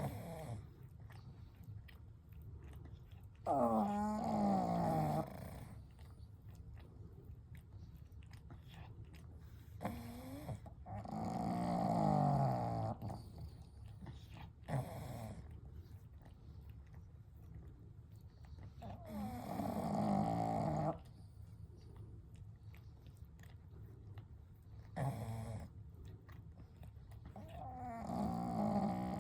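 Sleeping pugs snoring: a loud, drawn-out snore every six to nine seconds, each with a wheezy tone that slides in pitch, over quieter steady breathing.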